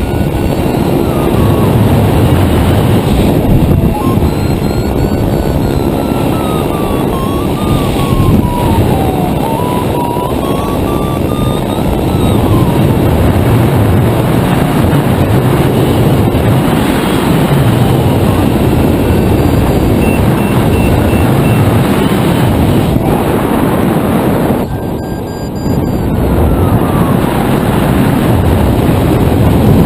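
Loud, steady rush of airflow buffeting the camera microphone on a hang glider in flight. A faint thin tone wavers slowly up and down in pitch underneath, and the rush dips briefly about 25 seconds in.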